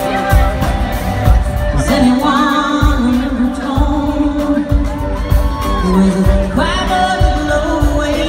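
A country-pop band playing live in an arena, heard from the crowd, with a steady beat of about one kick-drum stroke a second. A woman's lead vocal comes in about two seconds in. Occasional whoops and shouts come from the audience.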